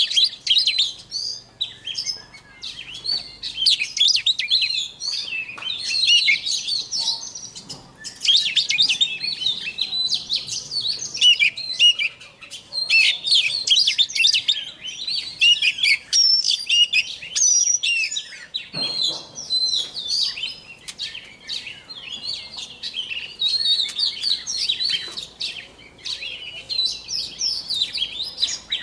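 Male white-rumped shama singing: a long, nearly unbroken run of rapid, varied high whistles and chirps, a bird practising its song.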